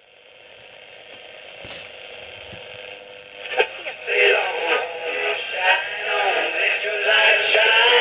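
Homebuilt two-transistor TRF radio on medium wave: a faint hiss at first, then about three and a half seconds in, as the tuning knob is turned, an AM station comes in playing music with singing. The sound is thin, with no bass.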